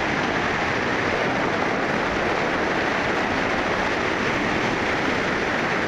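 Whitewater rapids rushing: a steady, even wash of churning river water.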